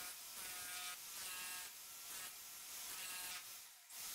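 Powerplus SDS-plus electric demolition hammer running against a plastered wall, chiselling out a cable channel. It makes a steady buzzing hammering in stretches of about a second, with a brief pause near the end.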